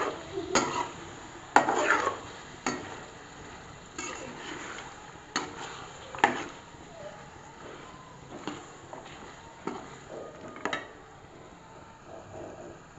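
Metal slotted spoon stirring vegetables in masala in a metal cooking pot, clinking and scraping against the pot's sides at irregular moments about once a second, fewer toward the end.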